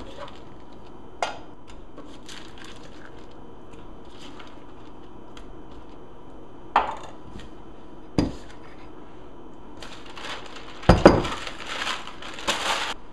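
A few separate knocks and scrapes of a kitchen knife and metal bowl as diced raw salmon is pushed off waxed paper into the bowl, then waxed paper crinkling and rustling for the last three seconds or so.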